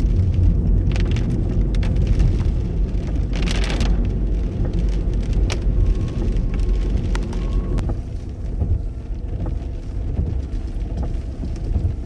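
Rain in strong gusting wind. The wind makes a loud, steady low rumble on the microphone, and scattered sharp taps of raindrops run through it.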